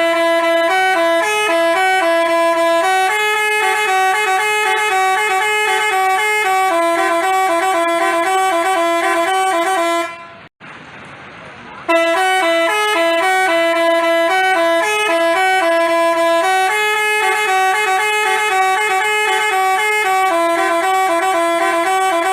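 Telolet basuri multi-tone bus horn playing a melody of stepped, held notes. It stops for about two seconds roughly halfway through, then starts again.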